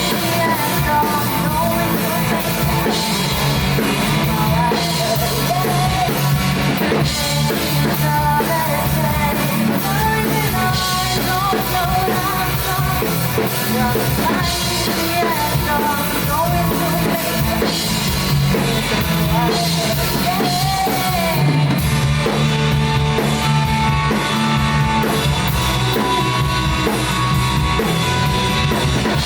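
Rock music with a drum kit and a singing voice, playing steadily.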